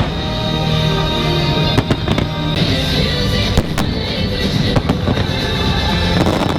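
Fireworks bursting over loud show music, with a cluster of sharp bangs about two seconds in and single bangs every second or so after.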